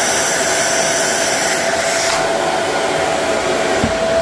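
Dyson Ball Animal 2 upright vacuum cleaner running at full power: a loud, steady rush of air with a steady whine from the motor. A brief low thump comes near the end.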